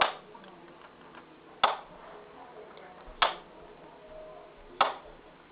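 Model railroad turnout's switch machine snapping over three times, about a second and a half apart, each a sharp click. The DS64 stationary decoder is working through throw commands queued from a push button pressed many times.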